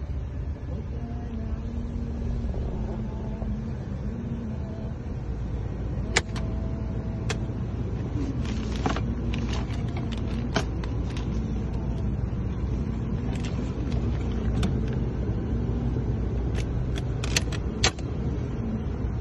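1979 Chevrolet Caprice engine idling steadily, heard from inside the cabin. From about six seconds in there are scattered clicks and rattles as the glove box is opened and its contents handled.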